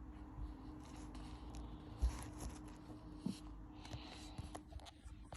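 Handling noise from unboxing a keyboard: light rustling with scattered taps and clicks, and a dull thump about two seconds in.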